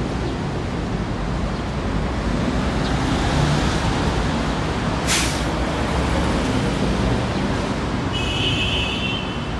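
Steady rumble of city road traffic, with a short sharp hiss about halfway through and a brief high squeal near the end.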